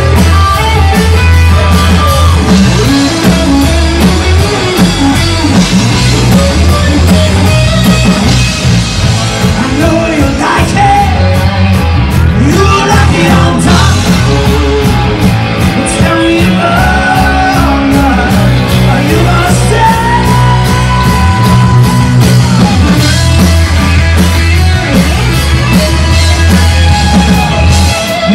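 Live rock band playing loud and amplified: electric guitars over bass guitar and a drum kit.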